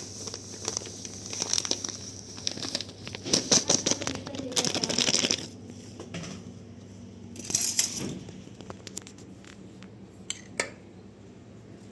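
Rustling and crinkling in bursts, loudest about three to five seconds in and again around eight seconds, followed by a couple of sharp light knocks.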